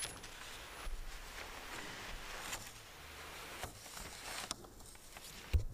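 Faint movement and handling noise: a few soft knocks and rustles over a quiet room, with a dull low thump near the end.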